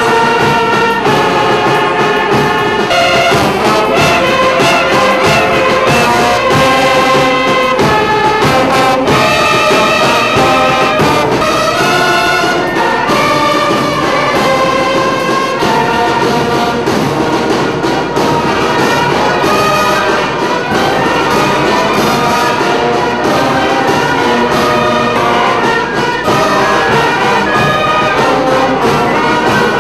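Brass band playing a piece of music continuously.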